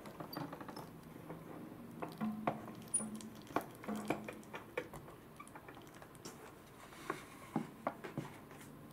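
A hand-cranked plastic toy sushi rice machine turning: its plastic gear wheels and crank click and tick irregularly as they work the rice through.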